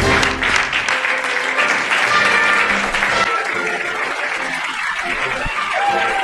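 Audience applauding, over background music.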